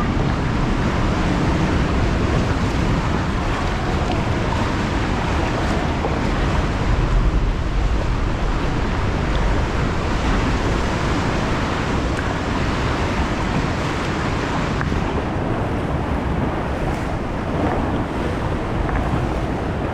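Steady rushing of the sea, with wind buffeting the microphone in a heavy low rumble.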